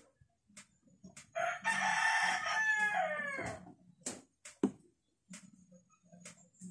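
A rooster crowing once, about two seconds long, its pitch falling at the end. Faint scattered clicks and taps can be heard around it.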